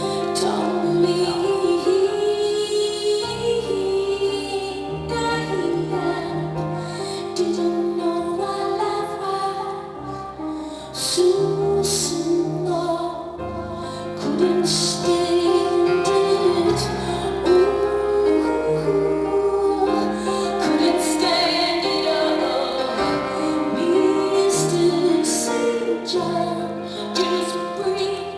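Live concert music from a band, with a stepping bass line under sustained keyboard-like notes and repeated drum and cymbal hits.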